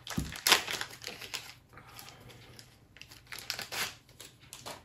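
Game cards and their packaging being handled: irregular crinkling and rustling with small clicks and taps.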